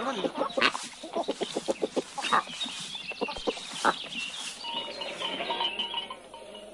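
Domestic fowl clucking and squawking in quick runs of calls, with other farm-animal noise. It dies down near the end.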